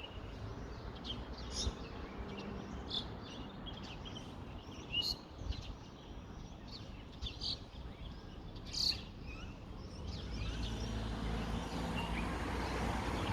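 Birds chirping in short, scattered calls over wind rumbling on the microphone. A low steady hum builds in the last few seconds.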